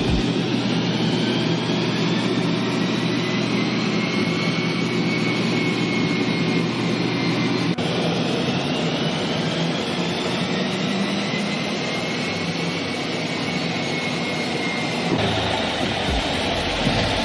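BMW F20 118i on a chassis dynamometer, its tuned turbocharged N13 1.6-litre four-cylinder running together with large cooling blowers: a loud, steady rush with a whine that slowly rises and falls in pitch. The sound changes abruptly about 8 and 15 seconds in.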